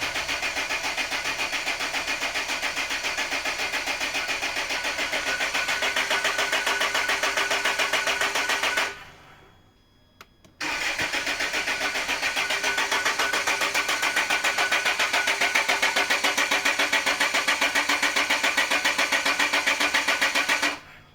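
Land Rover diesel engine cranking on the starter in two long bursts with an even, rapid beat, a short pause between them, without catching. The vehicle will not start, and the owners suspect a fuel fault.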